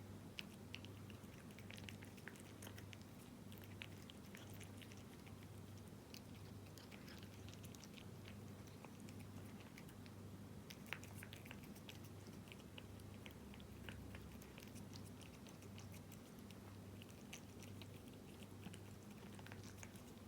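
A cat chewing wet cat food in jelly: faint, irregular small wet clicks and smacks of chewing, close to the microphone.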